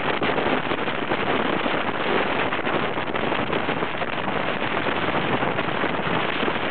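Steady rush of wind over a microphone held out of a moving train's open window, mixed with the train's running noise.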